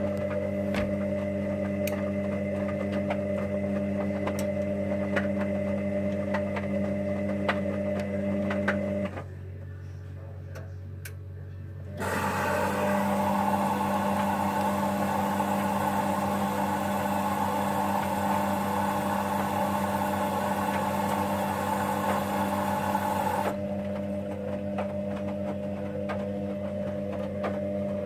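Hoover Dynamic Next front-loading washing machine mid-wash, its motor turning the drum of wet laundry with a steady hum. About nine seconds in the drum stops for a few seconds and then starts again. A rushing hiss then joins the hum for about ten seconds and cuts off suddenly.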